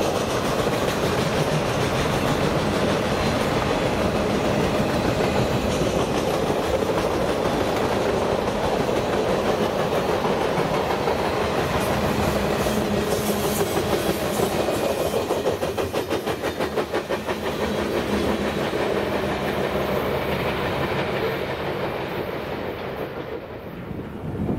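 Freight train cars rolling past with a steady rumble and the clickety-clack of wheels over the rail joints, the clicking quickest and most even around the middle. The sound fades near the end.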